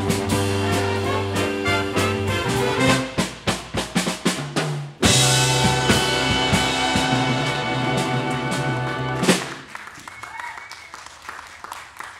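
Big band of saxophones, trumpets and drum kit playing the closing bars of a swing number: held horn chords, a drum fill, then a final long chord cut off sharply about nine seconds in. Light clapping follows.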